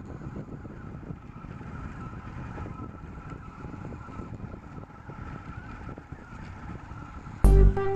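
3DR delta 3D printer printing: a steady mechanical running noise with a faint wavering whine from its motors. Near the end, loud guitar music cuts in over it.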